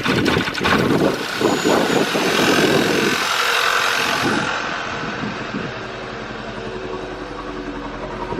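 Audi A4 B8's 2.0-litre direct-injection four-cylinder engine just started, running unevenly at first and settling to a steadier idle about halfway through. It is misfiring on several cylinders, which the mechanic suspects is an injector stuck open and leaking fuel into the cylinders.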